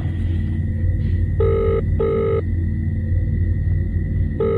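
British-style telephone ringing tone heard from a mobile phone as an outgoing call rings unanswered: a double burr about a second and a half in, and the next double burr starting near the end. Under it runs a steady low drone of background music.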